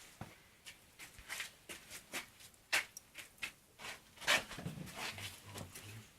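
Wood fire crackling in a fireplace: irregular sharp pops and clicks, a few a second, with the loudest pop about four seconds in.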